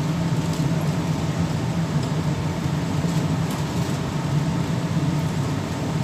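Bombardier Innovia C801A rubber-tyred light-rail car running along its concrete guideway, heard inside the car: a steady low rumble with a faint steady whine above it.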